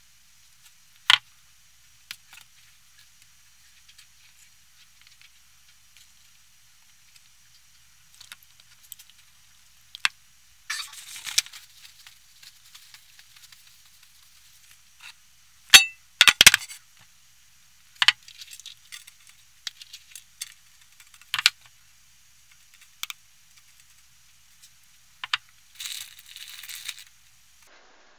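Scattered clinks and knocks of kitchenware being handled while chicken breasts are coated, loudest in a quick cluster a little past halfway, with two short rustles.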